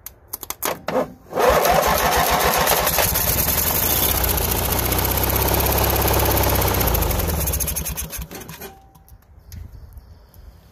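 A 17 hp Briggs & Stratton twin-cylinder lawn tractor engine is cranked with the electric starter and catches after about a second. It runs loudly for about six seconds, then winds down and stops. It is running on a little gas poured into the carburetor, with the choke held closed.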